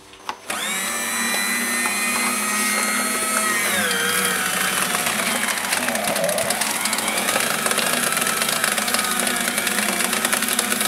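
Staples desktop paper shredder running and cutting through paper, then a strip of thin cardboard. It starts about half a second in, and its motor whine drops in pitch about three and a half seconds in.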